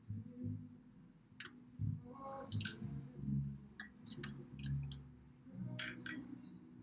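Scattered faint clicks and soft rustles from a person signing in front of a webcam: hand, mouth and body sounds, with a small cluster of clicks in the middle and two near the end.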